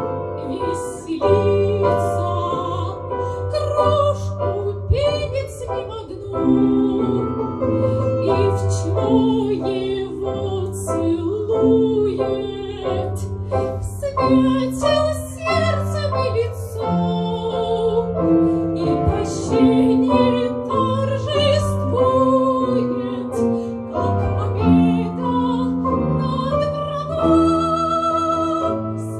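Operatic-style singing with strong vibrato over a recorded piano accompaniment, continuous throughout.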